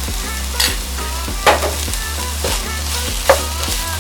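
Chopped vegetables sizzling in a pot while a spoon stirs them, knocking and scraping against the pot about once a second.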